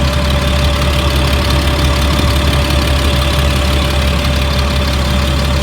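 Caterpillar diesel engine of a 2004 Blue Bird All American school bus idling steadily, with a steady whine over the low drone. Warm after about an hour of running, it sounds good and is not overheating.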